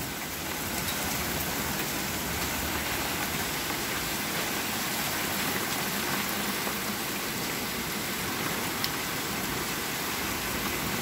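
Hail coming down steadily in a storm: an even hiss with a few faint ticks of hailstones.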